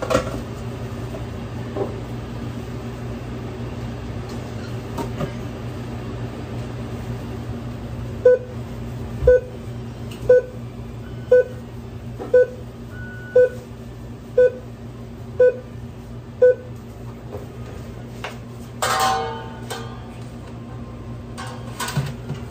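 Sandwich oven's timer beeping: nine short, identical beeps about a second apart, signalling that the cooking cycle is done. A steady hum from the kitchen equipment runs underneath.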